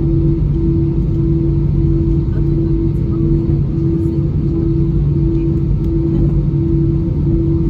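Airliner cabin with the engines running: a steady low rumble and drone, with a humming tone that cuts out briefly about once a second.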